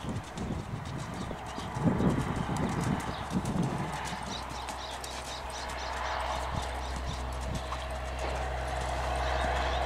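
A Clydesdale mare's hooves pounding the arena sand at a lope, heaviest in the first few seconds, with a steady low background rumble building in the second half.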